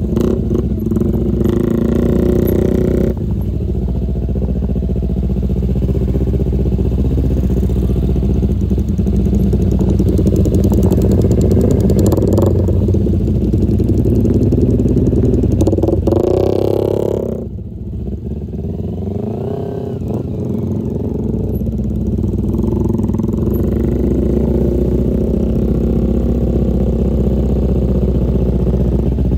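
Motorcycle engine running steadily while riding along a road. Its speed dips about two-thirds of the way through, then wavers up and down before settling again.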